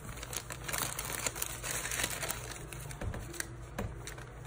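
Paper crinkling and rustling in irregular short crackles as a Maltese puppy pushes and noses at a paper bag and newspaper.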